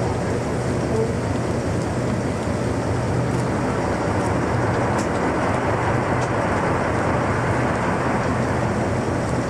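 Tour boat's engine running with a steady low hum under an even wash of noise.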